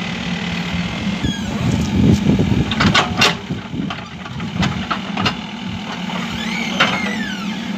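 Mahindra EarthMaster VX backhoe loader's diesel engine running steadily as the backhoe digs and swings a bucket of soil, with several sharp metal clanks from the bucket and arm, loudest about two to three seconds in.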